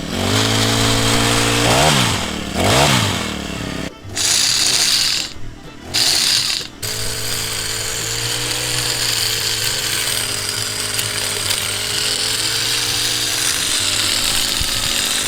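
Small two-stroke engine of a petrol hedge trimmer running after being pull-started. It is revved up and down twice, breaks off briefly a couple of times, then settles into a steady run.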